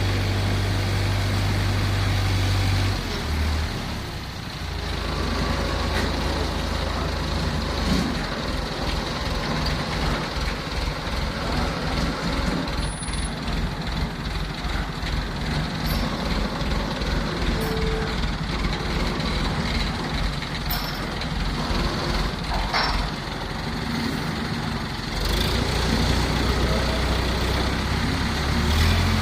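Jaw crusher machinery running with a loud, continuous mechanical drone, which turns into a fast, even low throbbing for most of the middle of the stretch and then goes back to a steady drone, with occasional clanks on top.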